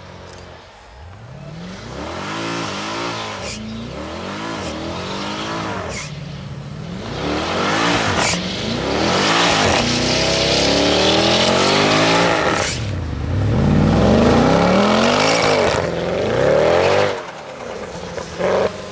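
Mercedes-Benz C63 AMG (W204) 6.2-litre V8 revving up and down again and again during a burnout, with the spinning rear tyres squealing against the road. The revs rise and fall about once a second at first, then in longer, louder pulls, and the engine drops back near the end.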